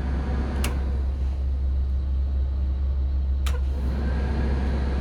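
Blue Bird school bus engine idling with a steady low rumble, with two sharp clicks, about half a second in and again at three and a half seconds, as dashboard switches are flipped.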